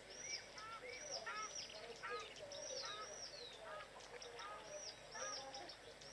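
Several birds calling: short, arched call notes, some high and some lower and sliding down, repeated and overlapping many times over.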